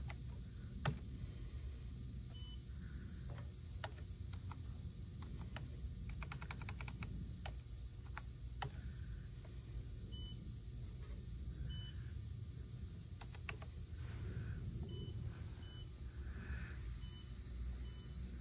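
Short high beeps from the press brake's CNC touchscreen control as its keys are pressed, with scattered sharp clicks and a quick run of clicks about six seconds in, over a steady low hum.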